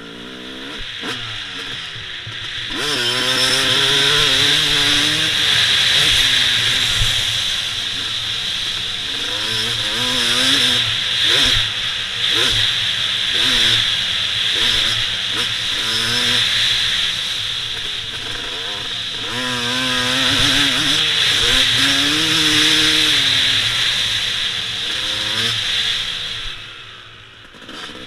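Dirt bike engine revving up and down again and again as the bike is ridden, shifting and backing off the throttle, with heavy wind noise on the microphone that comes up about three seconds in as the speed builds. The engine eases off briefly near the end.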